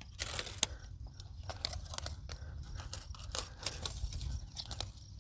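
Steel fence wire and a screwdriver clicking and scraping against each other as gloved hands work a barbed-wire splice loop: a string of small, irregular metallic ticks.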